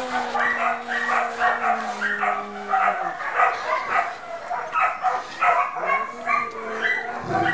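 Black-and-tan dog whining in two long drawn-out whines that step down in pitch, over quick rhythmic panting.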